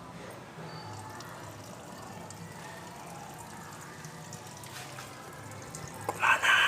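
Automatic washing machine running a wash: a steady noise of water with an on-and-off low hum. A short, louder noise comes near the end.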